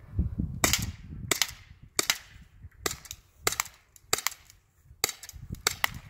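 Umarex Walther PPQ M2 .43 calibre RAM CO2 marker pistol fired in semi-automatic at targets, about nine sharp shots at roughly half-second to one-second intervals.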